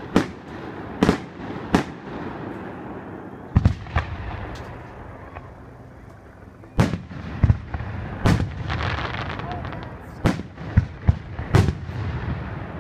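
Aerial fireworks shells bursting in about a dozen sharp, irregularly spaced bangs, with crackling between them. A short lull comes about halfway through, then a denser run of bangs.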